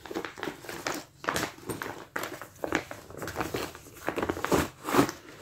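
Clear plastic zippered bag rustling and crinkling in short, irregular rustles as it is handled and opened by hand.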